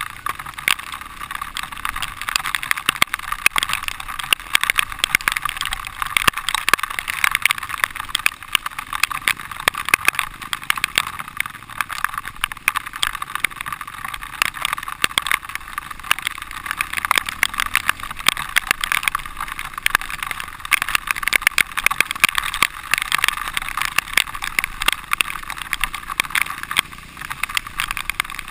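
Dirt bike engine running and revving as the bike rides over a wet, muddy trail, heard from a helmet-mounted camera as a steady, rough, busy noise.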